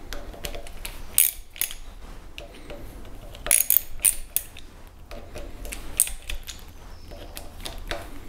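Small metallic clicks and clinks of a hex key working the screws of a surface grinder's oiler cover: a scatter of sharp ticks, with a quick cluster about three and a half to four seconds in.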